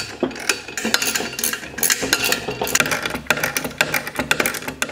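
Ratcheting wrench clicking in quick, uneven runs as it snugs the nuts onto carriage bolts on a steel compressor bracket, with light metal clinks of the tool against the bracket.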